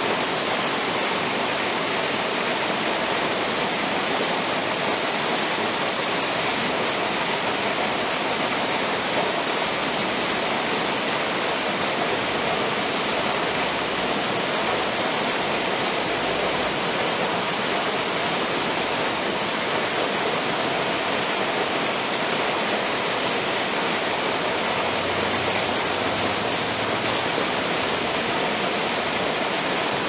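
Waterfall rushing: a steady, even wash of falling water with no breaks or changes.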